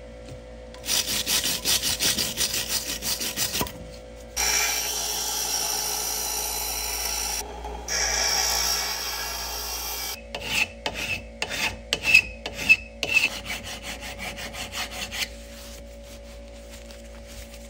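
Hand abrasion of a restoration part in quick back-and-forth rubbing strokes. A steadier stretch of continuous scraping comes in the middle, and a second run of strokes with small ringing ticks follows. It stops a couple of seconds before the end.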